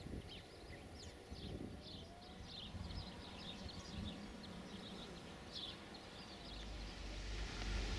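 Faint outdoor ambience with small birds chirping in short, high, scattered calls. From about six and a half seconds a low rumble and hiss swell up and cover them.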